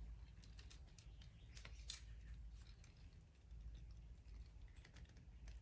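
Faint, scattered small clicks and light handling of a SmallRig Magic Arm and Super Clamp being moved in the hands, over a low steady hum.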